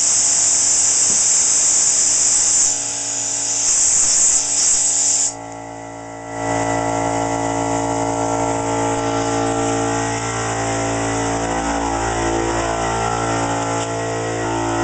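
Compressed air hissing steadily from a nozzle that blows steel shavings out of a hole-saw groove in thick plate; the air cuts off about five seconds in. About a second later a drill's electric motor starts running free with a steady whirring hum.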